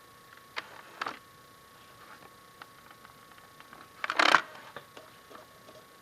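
Clicks and knocks from handling a DVD player's casing as it is taken apart: two short knocks about half a second and a second in, then a louder brief rattling clatter about four seconds in, with faint ticks between.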